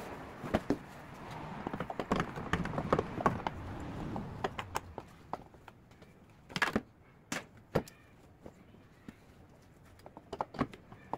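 Scattered clicks, taps and knocks of hands and tools working on the underside of a car, with a louder knock about six and a half seconds in. A rustling noise runs under the first four or five seconds and then fades.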